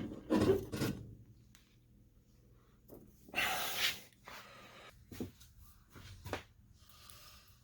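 Handling noises as an old lawn mower battery is worked loose and lifted out of its tray: a scraping rustle about three and a half seconds in, with a few light knocks and clicks around it.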